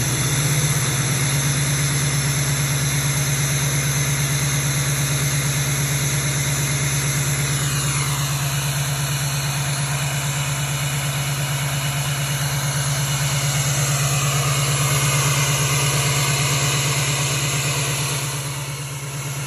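LMM Duramax 6.6-litre V8 turbo-diesel idling steadily, heard at the exhaust tip. A faint high whine falls slowly in pitch from about eight seconds in.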